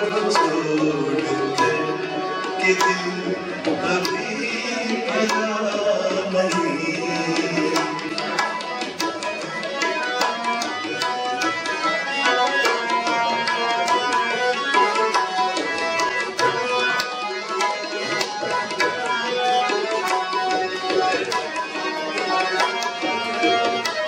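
Live Indian light-music accompaniment: an instrumental passage of rapid tabla strokes over a steady melodic instrument holding sustained notes.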